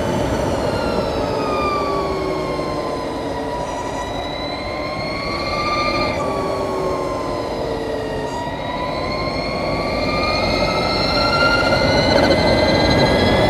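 2020 Harley-Davidson LiveWire electric motorcycle's motor whine at highway speed, over a steady rush of wind and road noise. The high whine falls over the first few seconds, rises and dips again in the middle, then climbs steadily near the end as the bike speeds up.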